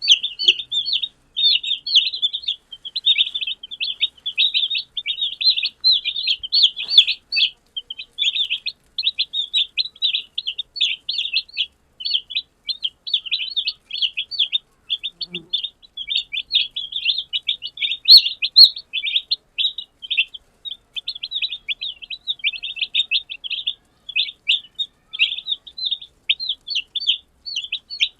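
Newborn chicken chicks peeping, many short high cheeps from several birds overlapping in a rapid, almost unbroken stream.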